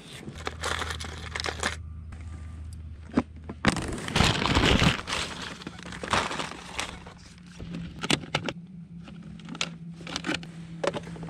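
Stiff plastic tackle packaging crinkling and clicking as it is handled and opened, with a louder stretch of rustling lasting about a second, about four seconds in.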